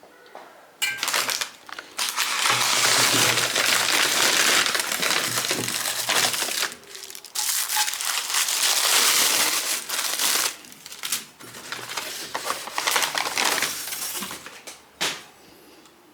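Crinkling and crumpling noise in several long stretches with short pauses, as of something being handled and crushed, with a few sharp clicks between.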